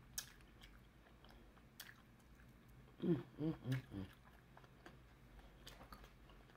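Soft, close-miked chewing and mouth sounds of someone eating seafood, with a couple of sharp clicks, the loudest just after the start. About three seconds in, a brief murmured voice sounds in four short pulses.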